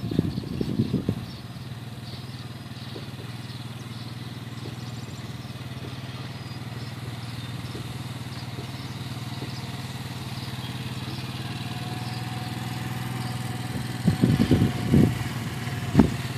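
ATV engine running at a low, steady pace while towing a wooden deer stand on wheels, growing slowly louder as it draws near. There are louder irregular thumps and rumbles about a second in and again near the end.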